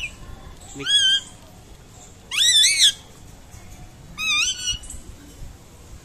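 Indian ringneck parakeet giving three short, high calls with wavering pitch, each about half a second long and spaced about a second and a half apart.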